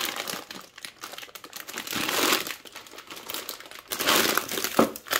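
Plastic bag of dried penne pasta crinkling in irregular bursts as it is handled and turned over in the hands.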